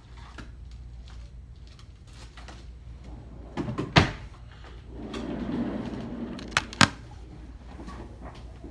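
Small hard clicks and knocks of tools and phone parts being handled on a work surface during a phone repair: a sharp knock about four seconds in, a rustling scrape after it, then two quick clicks close together.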